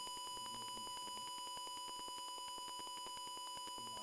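Simulated piezo buzzer in a Tinkercad Arduino circuit sounding a steady, high electronic beep with a slight buzz.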